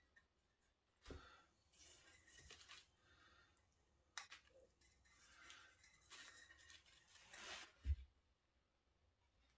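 Faint handling sounds: a timber batten knocked and stood on a dust sheet, with soft rustling in between. A dull thump about eight seconds in is the loudest.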